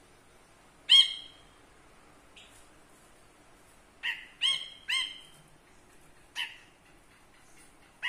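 Brinji kelabu, a bulbul, giving short, sharp calls. There is a loud one about a second in, a quick run of three at about four to five seconds, another a little after six seconds, and one more at the very end.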